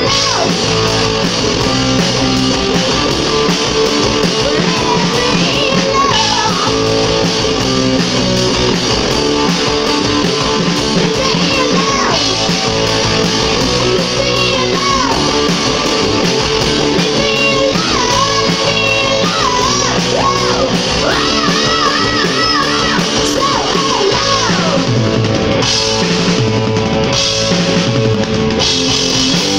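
Live rock band playing loud: electric guitar, bass guitar and drum kit, with a melodic line of bent notes and wide vibrato around the middle.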